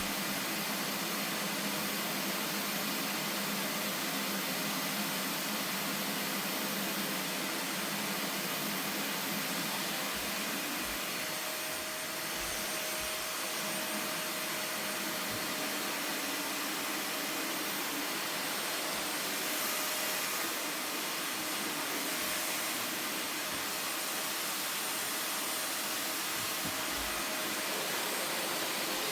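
Vacuum cleaner running steadily: a constant rushing hiss of air with a faint, even motor whine.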